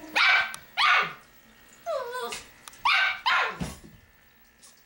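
Shetland sheepdog barking: four sharp, loud barks in two pairs, with a quieter falling whine between the pairs.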